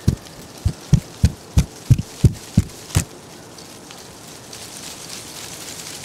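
Feet stamping on a tiled terrace: about nine dull thumps at roughly three a second, which stop about three seconds in. A soft hiss then rises toward the end.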